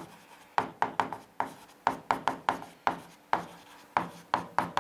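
A stylus tapping and scraping on the glass of an interactive display as words are written: a quick, irregular run of sharp clicks, about four a second.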